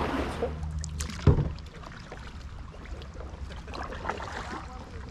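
Kayak paddling on calm water: light splashes, drips and small clicks from paddle strokes, with one sharp knock about a second in. Wind rumble on the microphone dies away over the first second.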